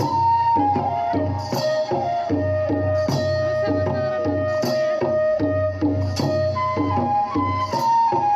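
Bodo folk dance music: a flute plays a melody in long held notes over a steady drum beat, with a bright cymbal-like stroke about every second and a half.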